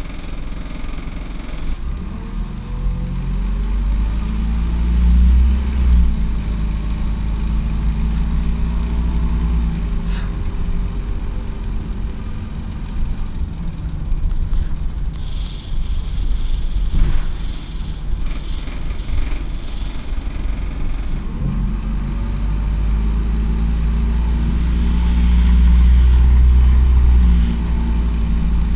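Optare Solo M950 bus engine heard from inside the cabin, building up twice as the bus pulls away and accelerates. In the quieter stretch around halfway there are rattles and a brief hiss.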